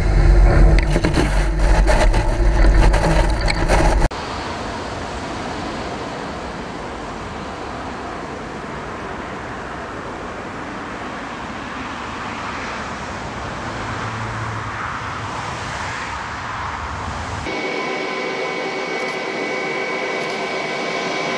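Jet blast from a Boeing 717's two rear-mounted Rolls-Royce BR715 turbofans at takeoff thrust, aimed straight at the microphone: a very loud, low rumble with heavy wind buffeting. About four seconds in it cuts off abruptly to a much quieter, steady jet rushing noise, which near the end turns into a steady engine whine with high tones.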